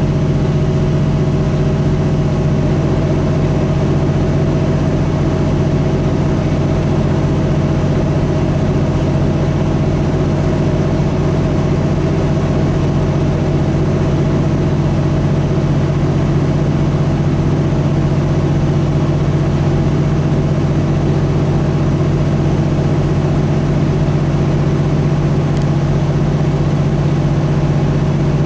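Semi-truck diesel engine running at a steady speed, a constant low drone with an even rush of road noise over it and no change in pitch.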